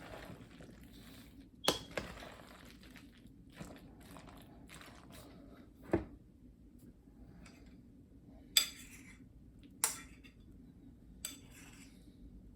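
A spoon folding macaroni salad in a mixing bowl: soft wet stirring broken by several sharp clinks of the spoon against the bowl.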